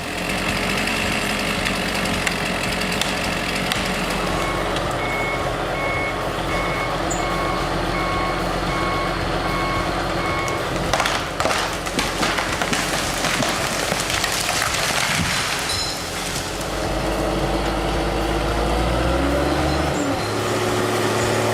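Heavy machine's diesel engine running, with a reversing alarm beeping about once a second for several seconds. Partway through comes a run of sharp knocks and crashes, and near the end the engine note rises.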